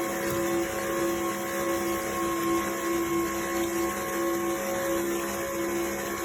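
Electric juicer motor running steadily with an even whirring hum.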